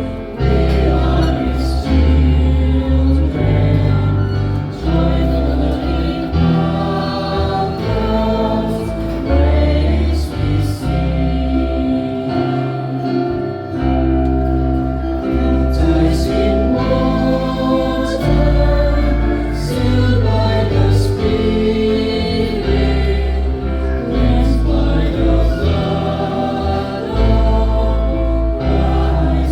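Church choir singing a hymn, with a low bass accompaniment moving from note to note every second or two.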